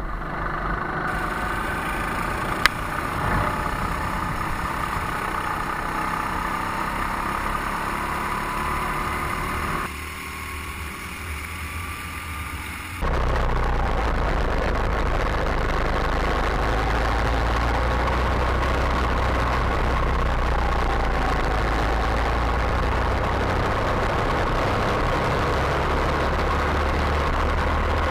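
Go-kart engines running, their pitch slowly rising and falling. The sound changes abruptly twice, about ten and then thirteen seconds in, becoming steadier and fuller after the second change.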